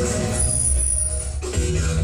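Music playing from a television tuned to a music channel; about one and a half seconds in it changes abruptly to a different passage with a steady bass line.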